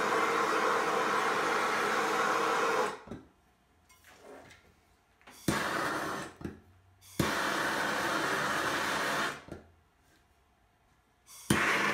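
Handheld propane torch burning with a steady rushing hiss, shut off about three seconds in. It is lit again three times, each start beginning with a sharp pop: briefly for under a second, then for about two seconds, and once more near the end.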